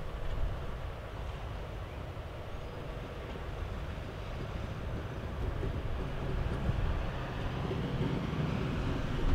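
ST44 (Soviet M62-type) diesel-electric freight locomotive, its two-stroke V12 diesel making a steady low rumble as it draws slowly nearer with a train of wagons. The rumble grows gradually louder toward the end.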